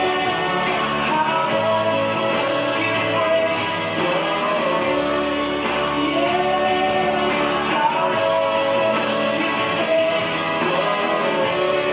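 Background music: a rock song with a sung melody over a steady guitar and bass.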